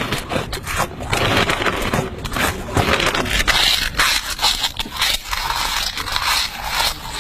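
A person eating noisily on purpose: loud, continuous crackly crunching and chewing of food.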